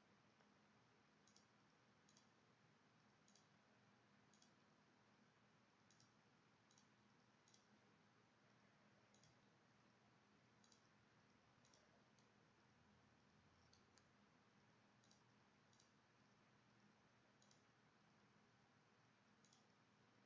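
Faint computer mouse clicks, irregular and about one a second, some in quick pairs, over a low steady hum.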